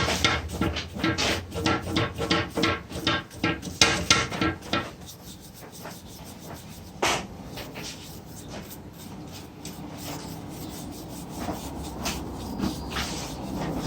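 Quick back-and-forth rubbing strokes by hand, about three a second, for about five seconds, then quieter handling with a sharp click about seven seconds in.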